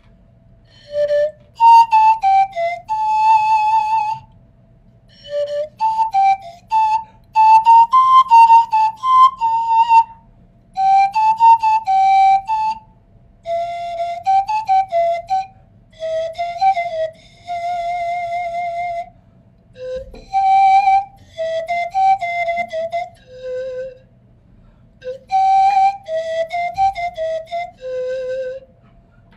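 A curved pan flute playing a slow melody in short phrases with brief pauses between them, mostly held notes with a few quick runs of notes.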